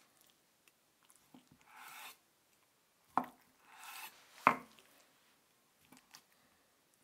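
Large kitchen knife slicing through a block of firm tofu on a wooden cutting board: soft sliding strokes through the tofu and sharp knocks of the blade on the board, one about three seconds in and a louder one about four and a half seconds in.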